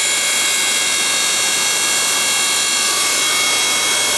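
Electric log splitter's motor running steadily, a loud even whine made of several steady tones, during a test run to check that the motor works.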